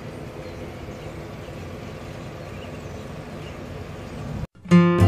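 Steady engine and cabin noise inside a Volkswagen Type 2 bus. Near the end it cuts out briefly and strummed acoustic guitar music starts.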